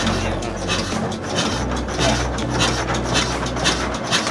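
Single-cylinder S1125 diesel engine running on its test start after the governor repair, with an even, raspy rhythmic clatter over a low drone. The low drone drops away near the end while the clatter goes on.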